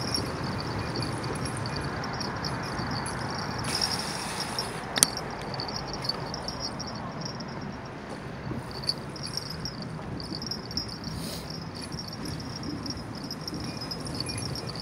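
Rushing wind and tyre noise from a bicycle being ridden, with a high chirping that comes and goes and one sharp click about five seconds in.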